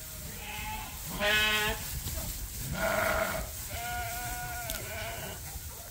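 Sheep bleating: a faint bleat, then three louder bleats over the next few seconds, the loudest about a second in.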